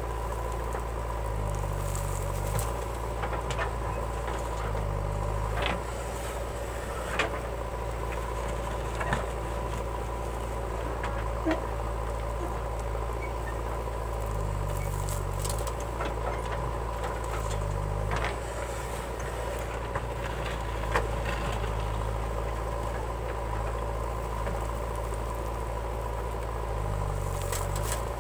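JCB 3DX backhoe loader's diesel engine running steadily with a steady whine while the backhoe arm digs and swings, its note changing now and then, with a few sharp knocks along the way.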